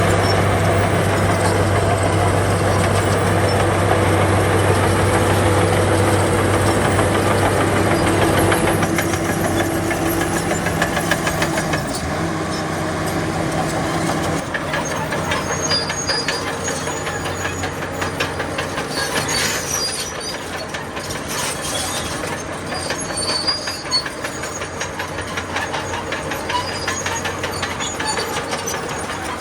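Bulldozer's diesel engine running with a steady drone that eases off about halfway through, while its steel crawler tracks clank and rattle rapidly.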